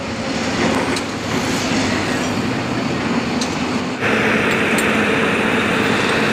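Steady din of heavy diesel machinery running, with a low engine hum and a few faint metallic clicks. About four seconds in the sound changes abruptly to a brighter, hissier machine noise.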